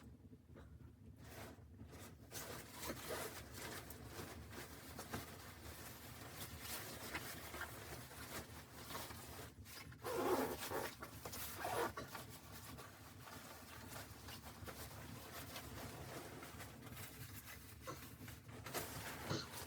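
Scratchy rustling and handling noises, with two louder bursts about halfway through.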